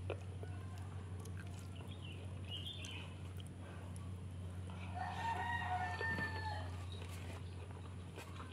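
A rooster crowing once, a long call about halfway through, over a steady low hum. Soft clicks of eating by hand from a leaf wrapping.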